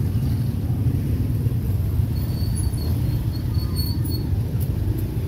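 Steady low rumble of a moving road vehicle, with faint high squeaks in the middle and two light clicks near the end.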